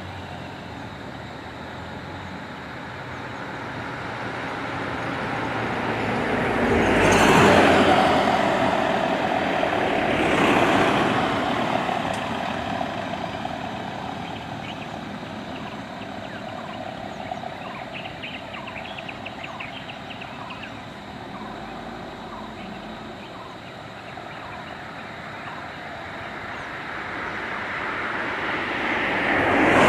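Road traffic: cars and vans driving past one after another, each pass swelling up and fading, loudest about seven and ten seconds in and again near the end.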